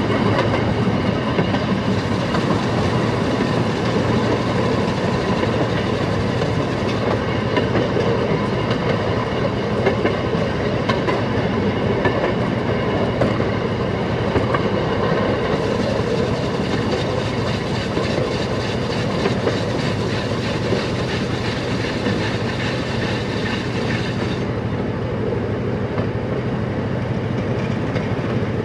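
Railroad motorcar (track speeder) running along the rails: its small engine runs steadily under the rolling noise of the steel wheels, with faint clicks as they pass over rail joints.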